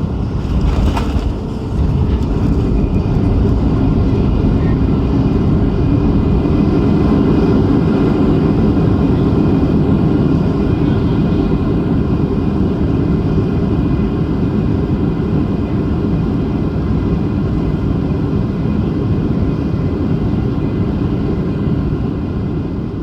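Boeing 737-800 heard from inside the cabin during landing: a short thump about a second in, then a loud, steady low rush of the CFM56 jet engines and airflow that eases slightly near the end.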